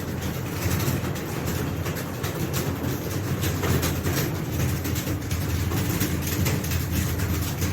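Many people typing at once: a dense, irregular clatter of keystrokes over a steady low hum.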